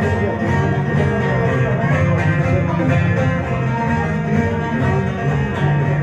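Bağlama (saz) playing an instrumental passage of a semah tune: quick plucked notes with no singing, between sung verses.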